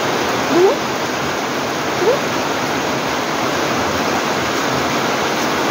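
Heavy typhoon rain falling steadily, an even hiss. Two brief rising calls sound over it, about half a second and two seconds in.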